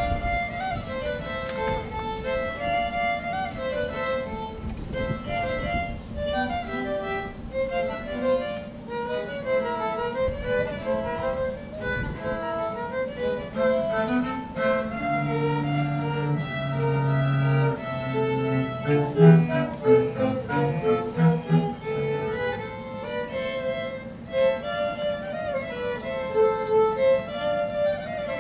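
String ensemble of violins, violas and cellos playing a busy melody, with held low cello notes joining in the middle.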